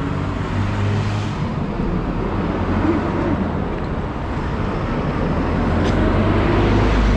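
Road traffic on a city street: a steady rumble of car engines and tyres, growing a little louder near the end.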